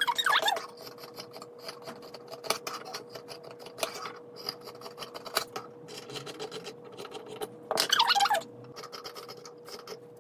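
Fabric shears snipping through cotton cloth, a run of short scratchy cuts with the rustle of the fabric being handled, over a faint steady hum.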